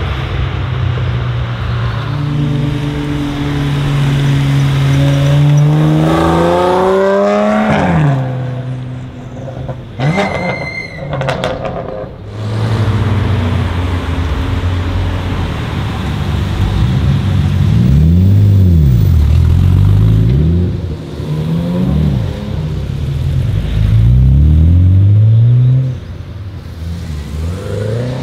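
Sports car engines accelerating and revving. First one pulls hard with a steadily rising note for several seconds, then a brief high whistle. After that an engine revs repeatedly, climbing and dropping, with two loud spells at high revs near the end.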